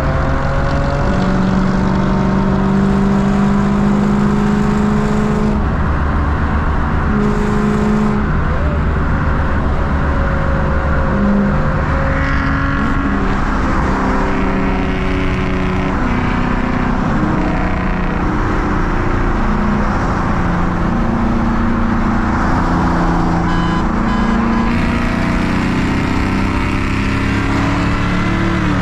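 Ford Mustang V8 engines running hard on the road, their pitch holding and then shifting in steps as the revs change.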